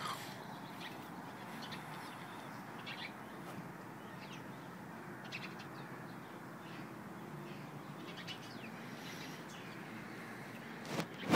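Birds calling in short, scattered chirps over a steady low background noise, with a couple of loud sharp knocks near the end.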